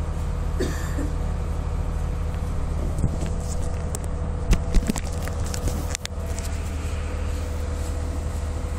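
Steady low rumble and hum of a train, with a few sharp clicks and rattles between about three and six seconds in.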